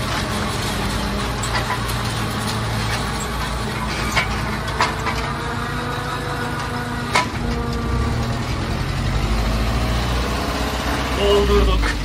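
Tractor engines and a tractor-drawn forage harvester running steadily, chopping standing corn for silage, with a continuous drone. Sharp knocks stand out about four, five and seven seconds in, and a heavier low rumble builds in the second half.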